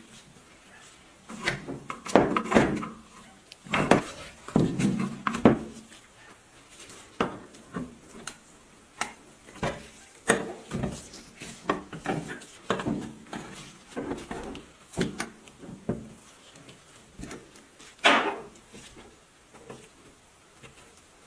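Irregular knocks, clunks and scrapes of an old grain grinder's parts being handled, as in taking the machine apart. A cluster of strokes falls a few seconds in, and one louder scrape comes near the end.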